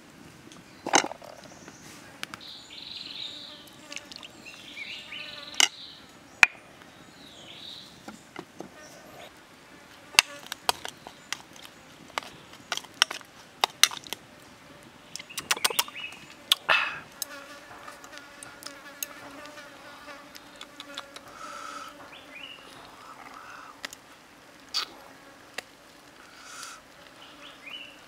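A plastic spoon clicking and tapping against a plastic bowl while stirring a sauce, with a run of sharp taps in the middle, over an insect buzzing steadily.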